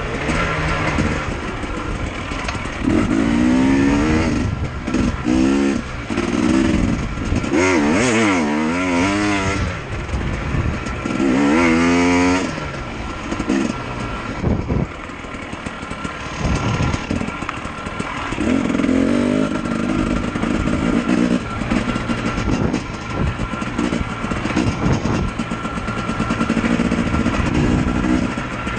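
KTM dirt bike engine being ridden along a trail, revving up and falling back again and again as the rider works the throttle and gears.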